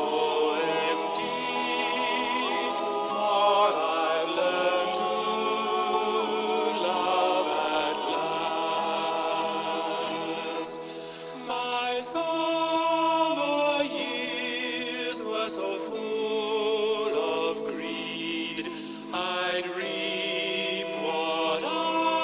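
A song on the soundtrack: voices singing long, wavering held notes over musical accompaniment.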